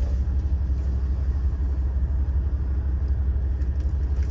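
Steady low rumble of a diesel railcar's engine idling, heard from inside the cabin of the stopped train.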